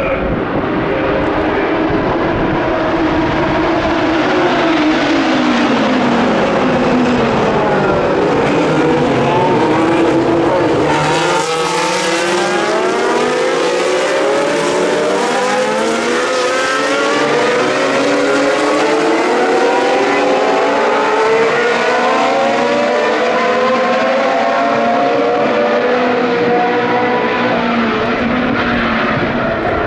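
Several historic Formula 1 race car engines at racing speed. Their pitch falls as the cars brake and downshift into a corner. From about a third of the way in, several engines at once rise in pitch through the gears as the pack accelerates away, with overlapping glides until the end.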